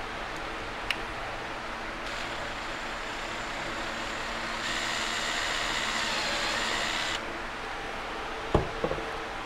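A power drill runs for about five seconds, speeding up partway through, as it bores a hole in a plastic licence-plate holder out to a larger size. A couple of sharp knocks follow near the end, over a steady fan hum.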